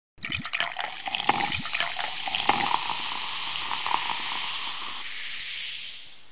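A carbonated drink being poured and fizzing. Low glugs and crackling bubbles fill the first couple of seconds, then a steady fizz slowly fades away.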